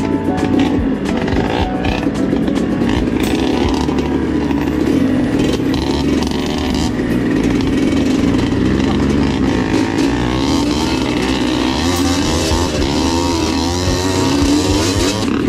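Dirt bike engine running under way, rising and falling in pitch as the throttle is opened and closed over rough, muddy ground, with a second bike's engine close ahead.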